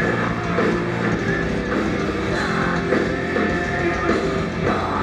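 Heavy rock band playing live on electric guitars, bass guitar and drums.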